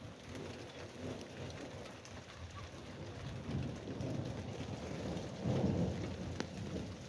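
Steady rain falling with scattered drop ticks, and low rumbles of thunder that swell in the second half and are loudest about five and a half seconds in.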